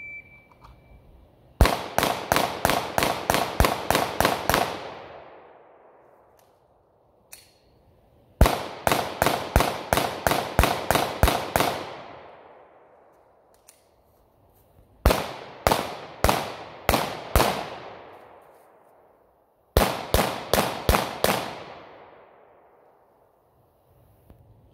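A single short beep from a shot timer starts the string. A Glock 19X 9 mm pistol then fires four rapid strings of shots with pauses of a few seconds between them: about a dozen shots in each of the first two strings, and about six and about eight in the last two. Each string trails off in echo.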